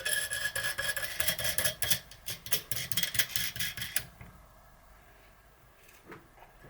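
Small loose metal hardware, washers and nuts, clinking and rattling rapidly for about four seconds. A few faint clicks follow.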